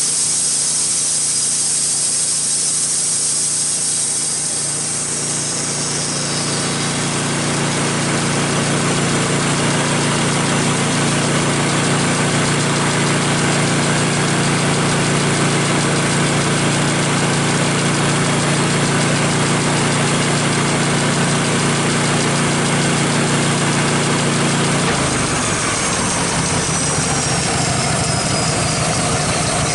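Wood-Mizer LT15 sawmill's engine running steadily, driving the spinning band-saw blade. Near the end its note drops.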